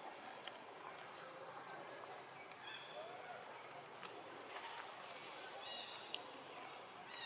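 Faint outdoor ambience with scattered high bird chirps and short whistled notes, and a few soft clicks.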